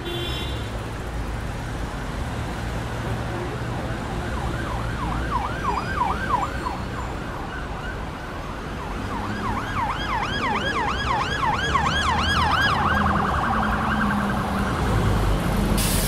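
Emergency vehicle siren in a fast yelp, sweeping up and down about three times a second, over a steady low rumble of city street traffic. It sounds briefly about four seconds in, then again for several seconds from about nine seconds in.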